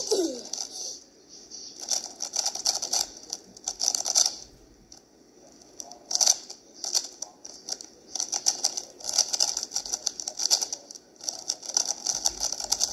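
Stickerless 3x3 speed cube's plastic layers being turned fast by hand: runs of rapid clicking and rattling, broken by short pauses.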